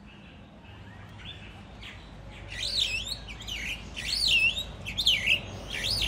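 A bird singing loud, looping whistled phrases that sweep up and down in pitch, about four phrases starting some two and a half seconds in.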